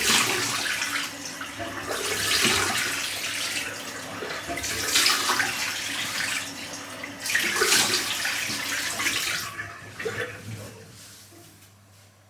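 Tap water running and splashing in a bathroom sink in four surges about two and a half seconds apart, fading away near the end.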